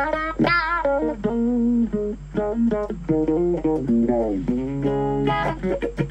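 Electric guitar played through a Blackstar ID:Core Stereo 10 V2 combo amp on its clean sound with the built-in auto-wah effect. It plays a phrase of single notes, each with a sweeping wah in its tone, and a longer held note near the end.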